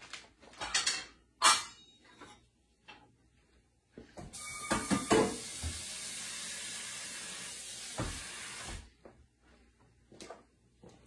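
Kitchen tap running for about four and a half seconds, a steady hiss of water that starts and stops abruptly, with a few clinks as it begins and scattered light knocks before it.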